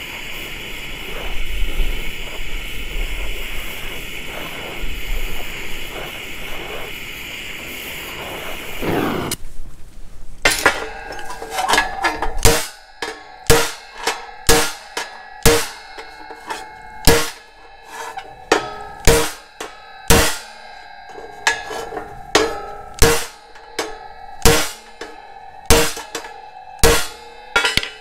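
Oxy-fuel torch hissing steadily as it heats a spot on a thick steel grille panel, cut off suddenly about nine seconds in. Then a ball-peen hammer strikes the heated spot against a dolly, a run of ringing steel blows at somewhat more than one a second, heat-shrinking stretched metal where a bracket mount had pulled.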